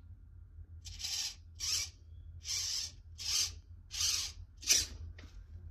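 An RC steering servo whirring as it turns a pulley that pulls the steering cables, in six short bursts about two-thirds of a second apart as the wheels are steered back and forth.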